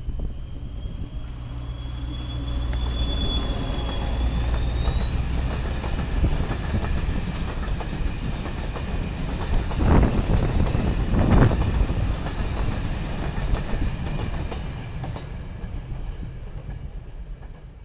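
SNCF BB 67400-class diesel-electric locomotive passing close with a train of hopper wagons: the engine's low drone and a whine rising in pitch over the first few seconds, then the wagons rumbling by with wheel clacks over the rail joints, the two loudest about ten and eleven seconds in, fading near the end.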